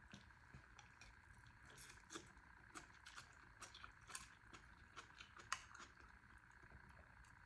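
Near silence with faint, scattered small clicks and ticks of someone eating, over a low steady room hum; one click about five and a half seconds in is louder than the rest.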